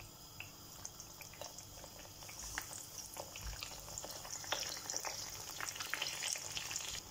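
Cheese-filled börek turnovers frying in shallow hot vegetable oil: a steady high sizzle with many small crackles and pops, getting louder past the middle.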